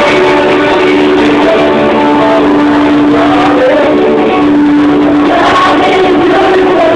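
A group of children singing a worship song to guitar-led accompaniment.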